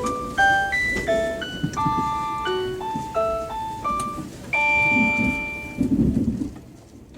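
Train in-car announcement chime playing a short melody of clear electronic tones over the train's low running rumble. The tune ends on a longer held chord a little past halfway, after which only the rumble remains.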